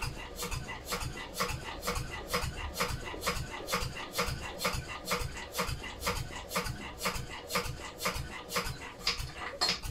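Lister D single-cylinder stationary engine being turned over by its crank handle for a compression test, making a steady rhythm of clicks and knocks, about two a second.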